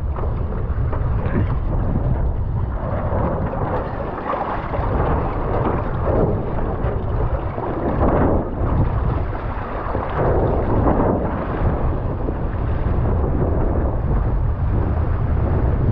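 Heavy wind buffeting the windsurfer's camera microphone as a steady low rumble, with water rushing and splashing against the board and sail in surges every couple of seconds.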